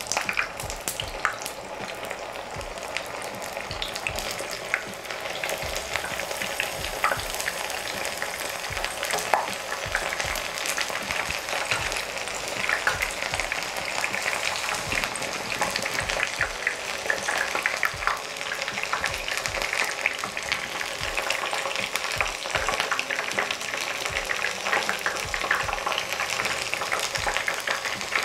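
Pieces of young jackfruit deep-frying in hot oil in a pan: a steady, dense sizzle of bubbling oil with many small crackles.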